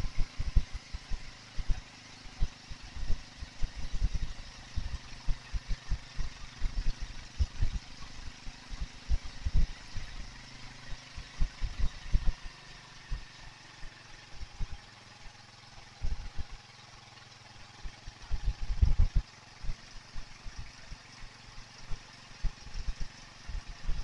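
Motorcycle engine running as the bike climbs a hill road, heard from a handlebar-mounted camera, with irregular low thumps of wind buffeting the microphone that ease off for a few seconds past the middle.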